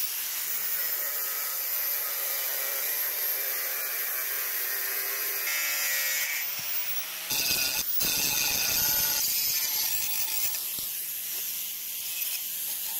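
Angle grinder with a cut-off disc cutting through a steel frying pan, a steady grinding screech. About seven seconds in it changes to a grinder with a flap disc grinding the freshly cut edge of the pan.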